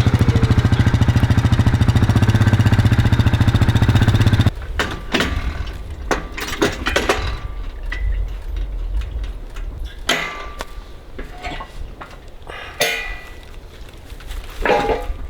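A log splitter's small gas engine runs steadily close by, then cuts off abruptly about four and a half seconds in. Scattered knocks and clunks follow.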